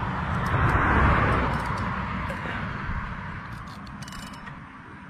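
A hooked snook thrashing and splashing at the water's surface, loudest in the first second or so and dying away. Near the end come a few sharp clicks from the fishing reel.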